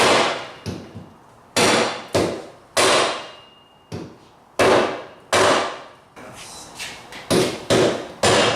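A hammer striking metal, about ten hard, irregularly spaced blows, each ringing out briefly afterwards.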